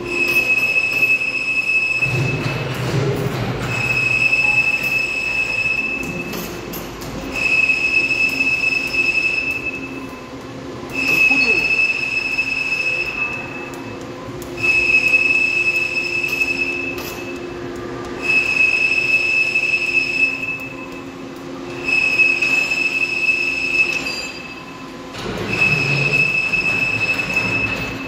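Electronic warning beeper sounding a high-pitched tone in long beeps, about two seconds on and a second and a half off, over a steady machine hum.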